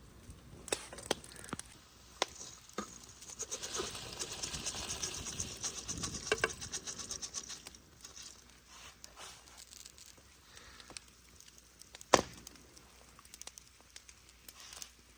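Kitchen handling noises: scattered light clicks and taps, a few seconds of crackling, rustling noise about four to seven seconds in, and one sharp knock about twelve seconds in.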